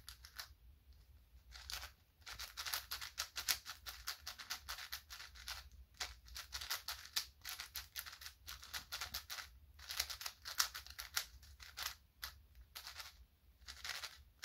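Magnetic 5x5 speedcube (YJ MGC 5x5, Cosmic edition) being turned by hand: fast runs of plastic clicking and clacking as the layers snap round. The turning starts after a second or so and goes in spurts with short pauses.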